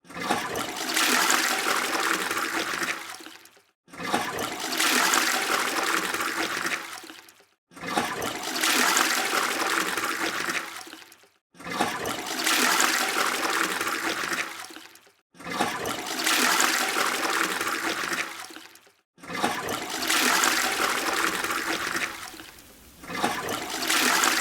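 Rushing water, a burst of about three and a half seconds repeated six times, each starting abruptly and then fading away.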